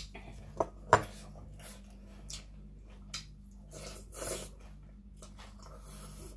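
A person eating khanom jeen rice noodles: two sharp mouth clicks about a second in, then noisy slurping as the noodles are sucked in, around four seconds in and again near the end. A low steady hum runs underneath.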